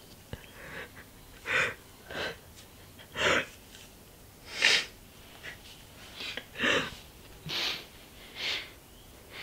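A man sobbing: a run of sharp, gasping breaths and sniffs, roughly one a second and uneven in strength.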